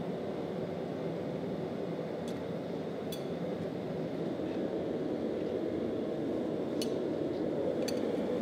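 Steady rushing noise of forge-shop machinery running, with a few light metallic clinks from the tongs holding the hot blade on the anvil.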